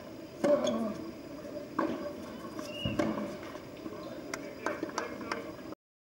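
Tennis rally: racket strikes on the ball about every second and a half, the loudest about half a second in, followed by a few lighter knocks. The sound cuts out briefly just before the end.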